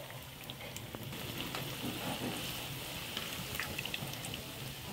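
Hot oil sizzling around gram-flour-battered pakoras deep-frying in a pan: a steady hiss with scattered small pops, a little louder from about a second in.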